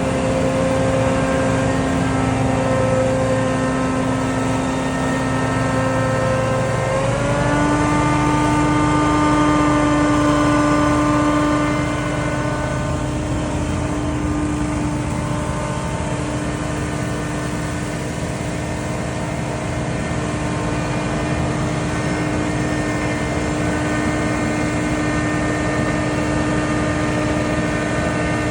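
Scag Windstorm debris blower running: a steady engine drone with a fan whine. About seven seconds in the pitch rises as it speeds up, then it holds at the higher speed.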